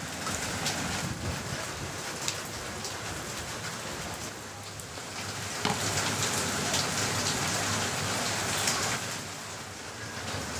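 Steady rain falling, a continuous hiss with many separate drop hits scattered through it.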